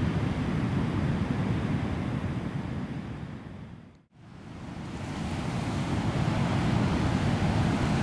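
Sea surf washing over shoreline rocks, a steady rushing noise heaviest in the low end. It fades almost to nothing about four seconds in, then swells back up.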